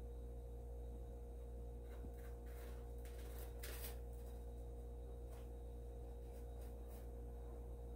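Faint scratching of a kitten's paws in cat litter, a few short scrapes about two and a half and three and a half seconds in, over a steady low hum.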